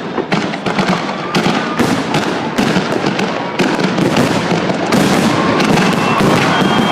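Fireworks display going off in rapid succession: a dense, continuous run of crackling bangs that grows a little louder about five seconds in.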